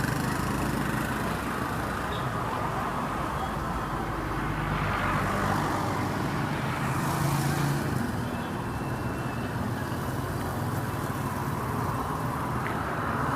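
Street traffic: cars and other vehicles passing, their engines and tyres a steady mixed rumble that swells as one goes by about halfway through.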